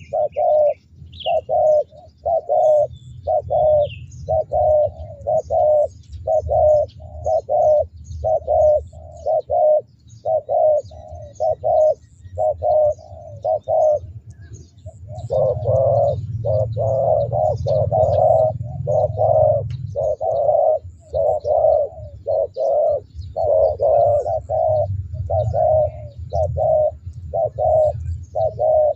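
Spotted doves cooing: a long series of short, deep coo notes about two to three a second, with a brief pause about halfway and then a few seconds of closely run-together cooing. The bird's heavy, drawn-out voice is what dove trappers call a 'thunder' voice. Faint chirps of small birds sound above it.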